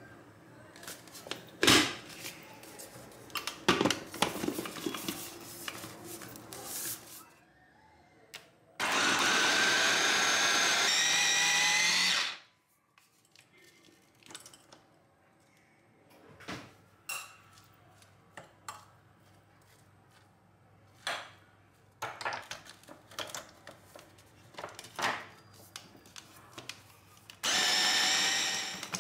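Electric kitchen chopper motor running in two bursts, one of about three and a half seconds and a shorter one near the end, its pitch shifting slightly as it works. Between the bursts come scattered clicks and knocks of kitchen handling.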